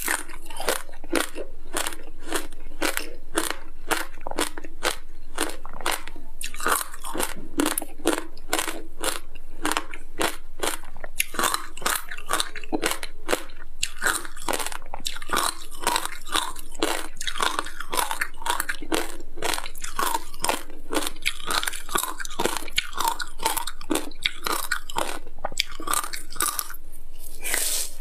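Chewing and biting hard frozen passion-fruit ice coated in sesame seeds, close to the mouth: rapid crisp crunches, several a second, with no pause. A fresh bite into the frozen ring comes near the end.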